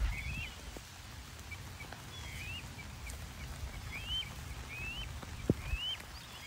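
Juvenile sandhill crane chick calling: a series of short, high peeps, each rising then falling, about a second apart, calling for its parents. One soft thump sounds about five and a half seconds in.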